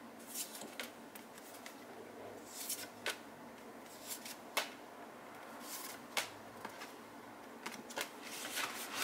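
Stiff printed cardstock lobby cards being leafed through by hand: quiet rustling and sliding of card on card, broken by a scattering of short sharp ticks.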